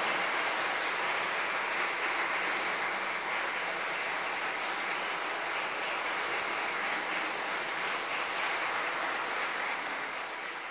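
Audience applauding, a steady dense clapping that begins to fade near the end.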